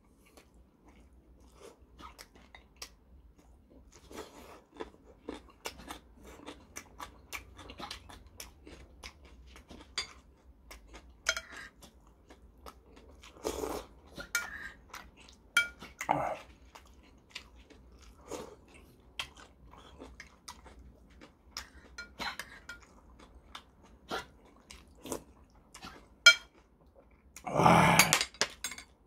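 Close-up eating sounds of a man working through a bowl of ramen with chicken: wet chewing, lip smacks and slurps as many short clicks, with a metal spoon now and then clinking against the ceramic bowl. A single louder open-mouthed mouth sound comes near the end.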